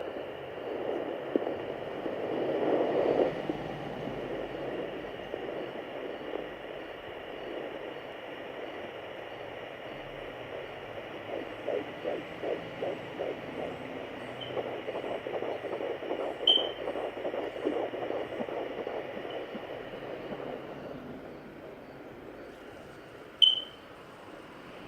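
Handheld fetal Doppler sounding a 14-week fetus's heartbeat through its speaker: a fast whooshing pulse, about two to three beats a second, over the device's steady static hiss, plainest in the middle stretch. A loud swell of whooshing near the start, and two sharp clicks, the louder one near the end.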